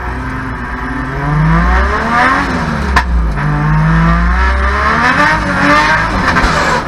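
Drift car's 1.5JZ straight-six heard from inside the cabin, revving up and falling back twice as the car drifts. A single sharp crack cuts through about three seconds in.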